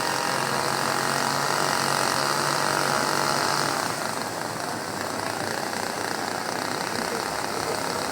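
Chainsaw's two-stroke engine running steadily. Its steady note fades and the level drops a little about four seconds in.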